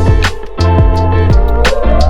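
Background music with a steady beat and a sliding synth tone that holds low, then starts to rise near the end.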